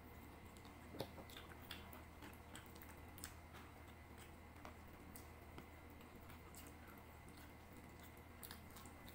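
Soft scattered clicks and smacks of someone eating chicken with their fingers: chewing and picking meat off the bones and rice, with one sharper click about a second in.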